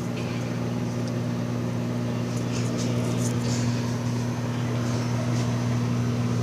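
Microwave oven running: a steady low electrical hum, with a few faint high ticks.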